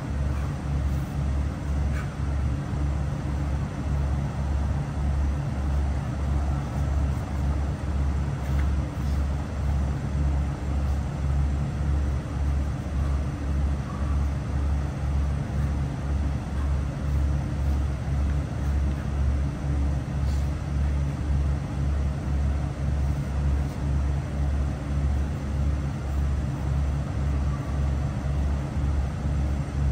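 A steady low mechanical hum that pulses evenly, about twice a second.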